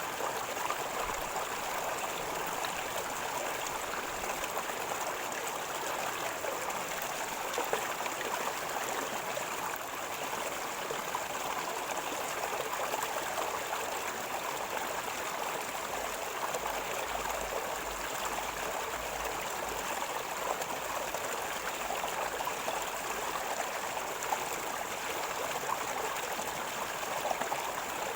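River water gurgling steadily over a streambed, a constant rushing wash with fine bubbling detail.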